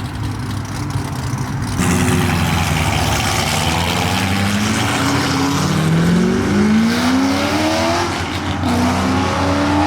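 Modified Ford Shelby GT500's supercharged 5.2-litre V8 accelerating hard away. The engine note climbs in several rising sweeps from about halfway through.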